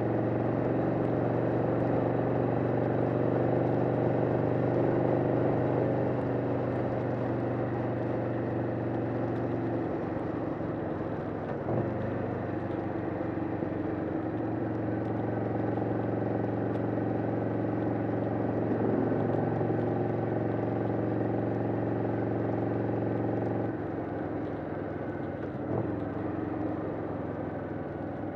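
1991 Harley-Davidson Sportster XL883's air-cooled V-twin engine running steadily at freeway cruising speed, with wind rushing over the microphone. The engine note changes briefly a few times and gets quieter about three-quarters of the way through.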